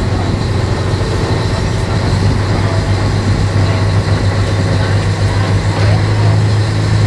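Excursion boat's engine running steadily under way, a low hum that grows a little stronger near the end.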